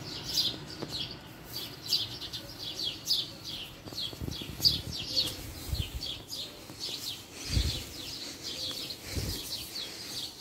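Small birds chirping continuously in short, high, falling chirps, several a second, with a few dull bumps about halfway through and near the end.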